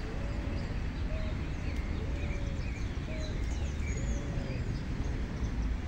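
Several birds calling at once: short arched calls repeating every half second or so, mixed with higher chirps and twitters, over a steady low rumble.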